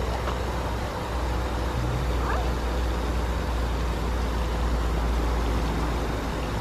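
Steady outdoor rumble and hiss, with a faint short chirp about two seconds in.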